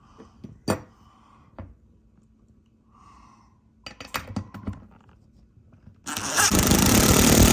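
A few light knocks and clinks of screws and mounting hardware being handled, then about six seconds in a power drill runs steadily for about three seconds, driving a mounting screw into the wall stud.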